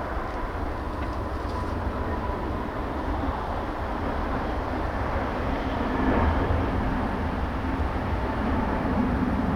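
Jet airliner engines running at takeoff power, a continuous rumble that grows a little louder about six seconds in.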